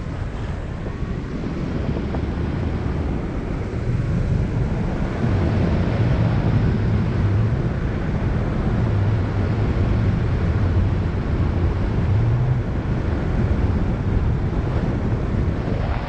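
Wind rushing over a hang glider's mounted camera microphone in flight: a steady, low buffeting rumble, a little louder from about four seconds in.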